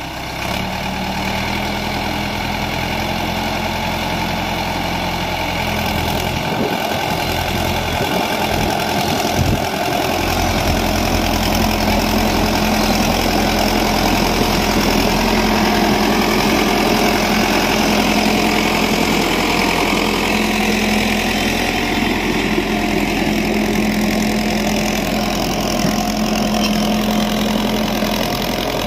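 Solis 5515 tractor's diesel engine running steadily under load as it pulls a mouldboard plough through the soil.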